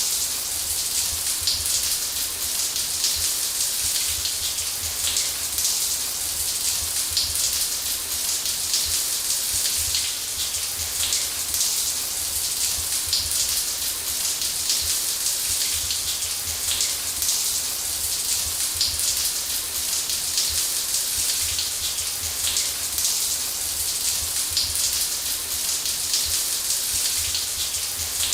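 Shower running steadily: a spray of water falling in an even hiss, with a low rumble beneath.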